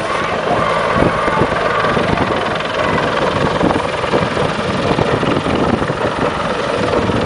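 CH-146 Griffon military helicopter running steadily, its rotor and turbine noise continuous and loud.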